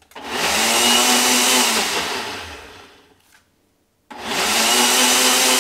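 Personal blender pulsing an oatmeal batter smooth, in two runs: the motor spins up, runs about two seconds and winds down, then starts again about four seconds in.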